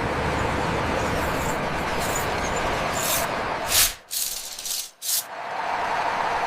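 Bus engine sound running with a steady rumble, broken by several short hisses like air-brake releases. The loudest hisses come near four seconds in and about five seconds in, and the low rumble drops away after the first of them.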